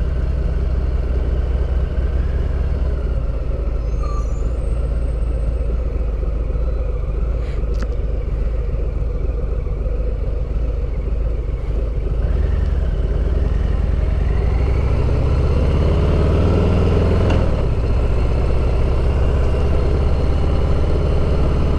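Harley-Davidson V-twin motorcycle engine running under way. Over the second half its pitch climbs and it grows a little louder as the bike speeds up, then it levels off.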